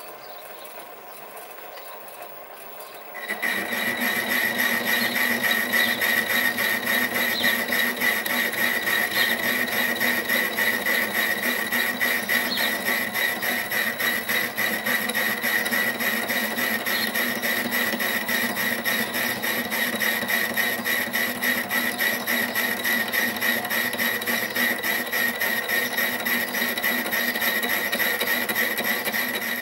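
Sieg SC3 mini lathe boring out an aluminium steam-engine cylinder at 200 RPM on power feed. It runs quietly at first, then about three seconds in a loud, steady high whine sets in and holds.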